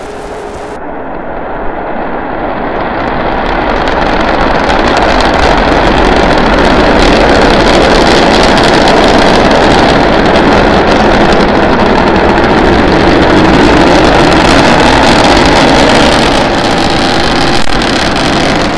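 Rocket engine noise from Starship SN9's three Raptor engines during liftoff and climb: a loud, steady rushing rumble that builds over the first few seconds, holds, and eases slightly near the end.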